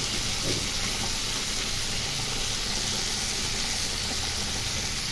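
Mixed vegetables and spice masala frying in oil in a nonstick wok, giving a steady sizzle: the masala being roasted (bhuna) for khichdi.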